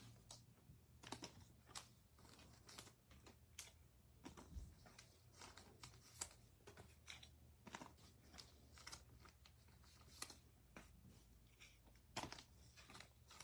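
Faint, scattered taps and rustles of trading cards being handled and laid down on a mat, with a faint steady low hum beneath.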